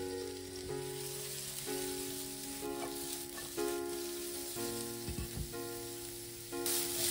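Sliced mushrooms sizzling in hot oil in a non-stick frying pan, a steady hiss that gets louder near the end, over background music of sustained notes.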